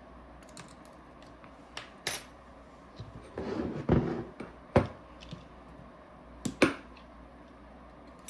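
Sparse sharp clicks and small knocks of tools and parts being handled on a workbench as the eye covers come off a Planet Eclipse LV2 paintball marker, with a short rustle of handling about three to four seconds in.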